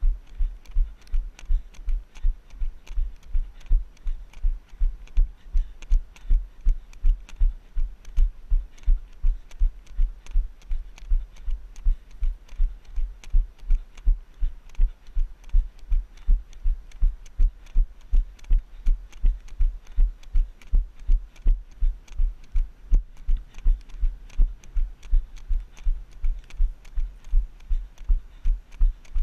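Rhythmic low thuds of a runner's footfalls jolting a body-worn GoPro camera, about three a second at an even jogging pace.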